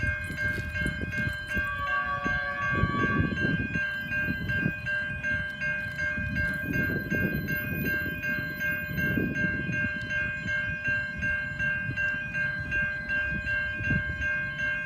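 Level crossing warning bells ringing steadily, over the low rumble of a freight train hauled by Pacific National NR class diesel locomotives.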